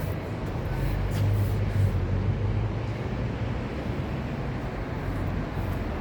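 Steady low rumble with a hum and a general noise haze.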